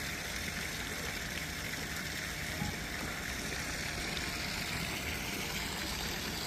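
Steady, even rushing background noise with no distinct events in it.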